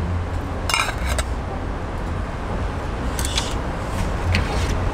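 Metal pot lid clinking and rattling as it is handled and set down over a pan, in short clatters about a second in and again around three seconds, over a steady low background rumble.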